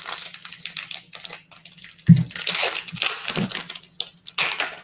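A pack of thick football trading cards and its foil wrapper being handled close to the microphone: a run of rustling and crinkling, with a sharper, louder crinkle about two seconds in.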